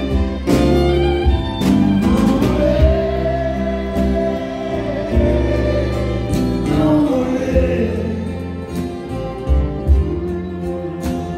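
Live Québécois country music: several acoustic guitars and a fiddle playing while several voices sing together, holding one long note in the middle.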